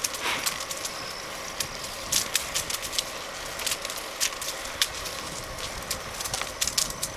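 Bicycle rolling along a rough paved trail: steady tyre hiss with irregular small clicks and crackles from grit under the tyres and rattles of the bike.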